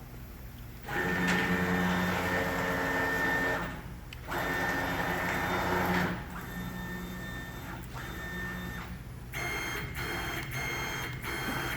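CNC plasma table's stepper motors whining as the gantry is jogged, in several steady runs whose pitch changes at about one, four, six and nine seconds in.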